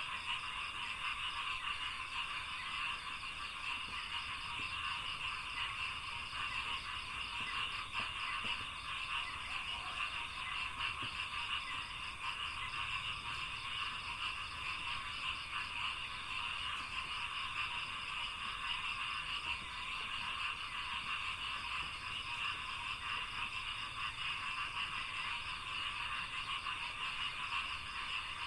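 A dense, steady chorus of frogs croaking in a rice field, with a fast pulsing trill above it.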